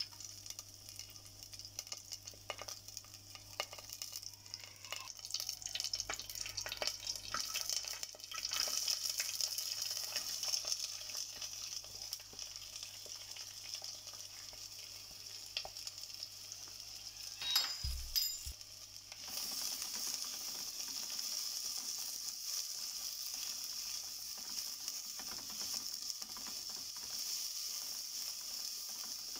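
Hot oil sizzling in an earthenware clay pot as whole bay leaves and cinnamon fry, with small crackles and the scrape of a wooden spatula stirring. Sliced red onions are added and a sharp knock sounds about two-thirds of the way in. After it the frying becomes a louder, steadier sizzle.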